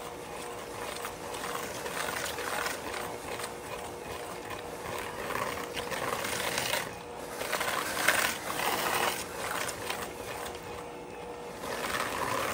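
Electric hand mixer with a wire whisk running steadily in a bowl of ricotta filling: a constant motor whine under the clatter and scrape of the whisk, swelling louder now and then as it is moved through the mixture.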